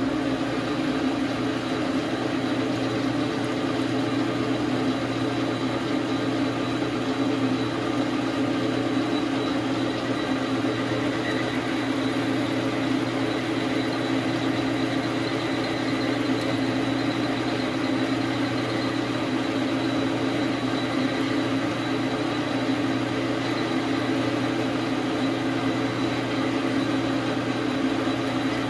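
Dar Sin 12 x 37 manual lathe running steadily under power, its motor and geared headstock giving an even hum and whir, while the scribe tip is being turned down.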